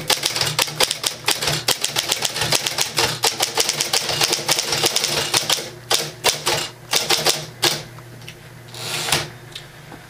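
A 1960 Smith-Corona Electra 12 semi-electric portable typewriter being typed on: a rapid, uneven stream of sharp key clicks from the electric type action over the steady low hum of its running motor. The typing stops a little under eight seconds in, with a brief noisy burst near the end.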